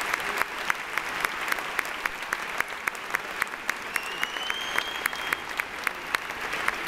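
Concert audience applauding. Over it, one clapper close by claps sharply and evenly, about three to four claps a second. About four seconds in, a brief whistle rises and then holds.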